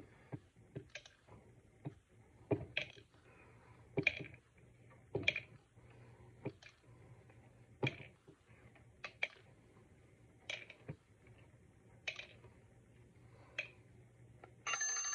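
Almonds dropped one at a time into a cup by a cockatoo, giving sharp, irregular clicks about once a second. Near the end an electronic timer alarm starts ringing, marking the end of the 30 seconds.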